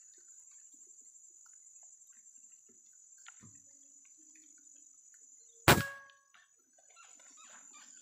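A single air-rifle shot about six seconds in: a sharp crack that dies away within half a second. A steady high-pitched hum and faint scattered ticks run under it.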